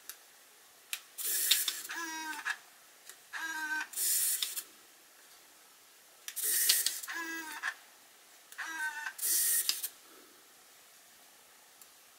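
Pentax Espio 120SW compact film camera's motorised zoom lens whirring four times, each run about a second and a half, with a small click of the power dial before some of them: the lens barrel extending as the camera switches on and retracting as it switches off. Each run goes from a wavering whine into a higher, hissing whir.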